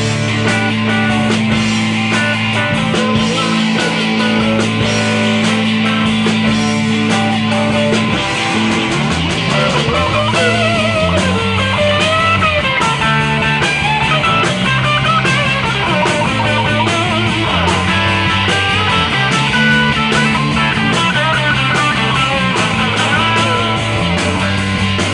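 Live rock band playing: electric guitars, bass guitar and drum kit. Low notes are held steady for the first several seconds, then a lead line with bending, wavering notes comes in about eight seconds in, over a moving bass line.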